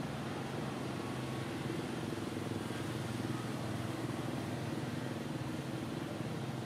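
Steady low hum of a running engine, unchanging throughout.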